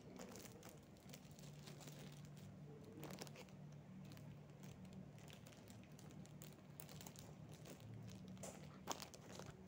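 Plastic snack wrappers crinkling faintly as they are handled, with scattered small rustles and clicks and one sharper click near the end.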